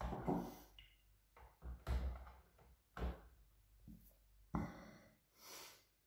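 Hard plastic knocks and clunks from a switched-off Bosch GL-20 canister vacuum cleaner's housing being handled by hand: a string of sharp, irregular knocks, with no motor running.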